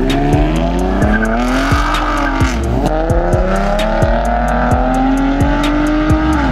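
Car engine revving hard under acceleration: its pitch climbs, drops at a gear change about two and a half seconds in, climbs again and falls off near the end.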